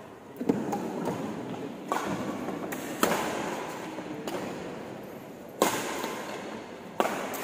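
Badminton rackets striking a shuttlecock in a fast doubles rally: five sharp cracks one to two and a half seconds apart, each ringing on in the reverberant sports hall.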